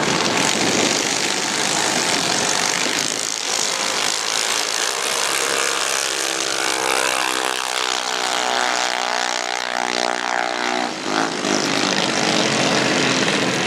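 Junior dragster single-cylinder engines running at full throttle down a drag strip, a loud buzzing engine note. A steady pitched engine drone stands out from about six seconds in and stops suddenly about eleven seconds in.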